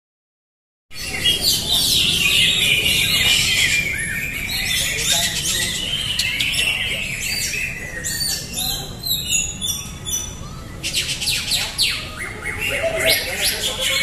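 Many caged green leafbirds (cucak hijau) singing at once in competition: a dense, overlapping stream of high chirps, whistles and trills that starts about a second in.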